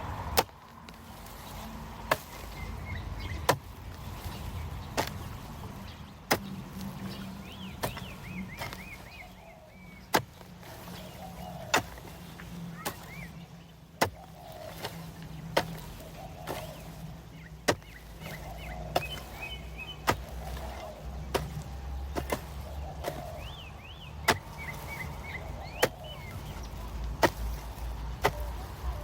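Repeated sharp chopping strikes of a hand tool, roughly one every second and a half, with birds chirping in between.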